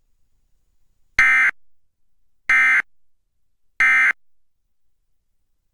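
Emergency Alert System end-of-message signal: three identical short bursts of high-pitched SAME digital data tones, each about a third of a second long and spaced about 1.3 s apart. It marks the close of the alert, here the end of a required monthly test.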